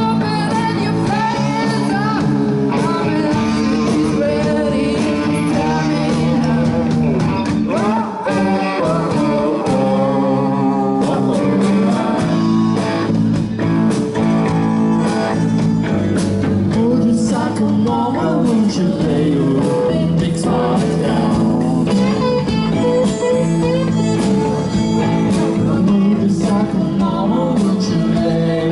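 Live rock band playing: electric guitars, violin and drums.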